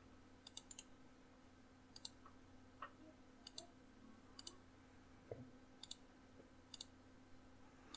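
Faint computer mouse button clicks, scattered and often in quick pairs, over a faint steady hum.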